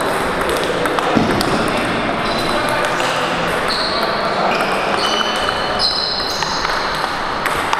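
Table tennis rallies in a large hall: the celluloid-type plastic ball clicking off bats and tables in quick sequences, with short high squeaks now and then, over background chatter.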